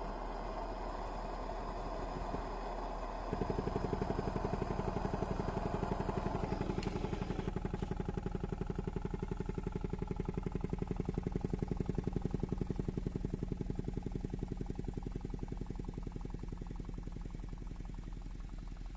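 Homemade tin-can hot air engine running, its piston rod vibrating rapidly in a fast, even buzzing rattle. The rattle starts suddenly about three seconds in over a steady hiss, then slowly weakens toward the end.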